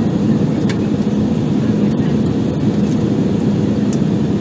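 Cabin noise of a jet airliner in flight, heard from inside the cabin: a loud, steady, low roar of engines and airflow with an even hum under it.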